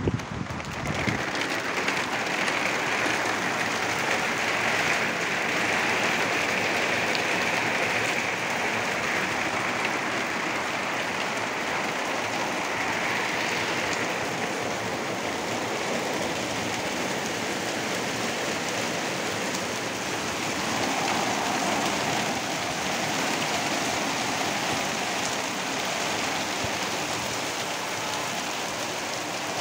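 Heavy rain falling on a flat concrete rooftop, with drops splashing into puddled water in a steady hiss.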